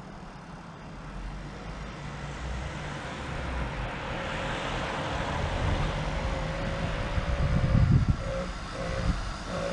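100cc two-stroke engine on a motorised mountain bike running and revving. The sound builds over the first few seconds, holds a steady buzzing note, then comes and goes in short throttle bursts near the end.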